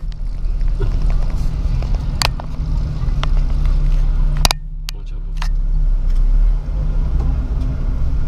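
Jeep's engine running at low speed, heard from inside the cab as it drives over rough dirt ground, with a few sharp knocks and rattles along the way.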